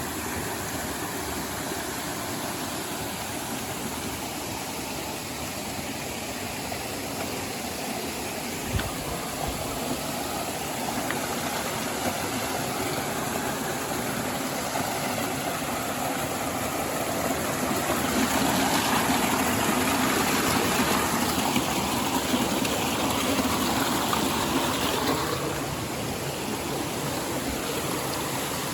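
Waterfall rushing in a steady hiss of falling water, growing louder for several seconds past the middle, with a single knock about nine seconds in.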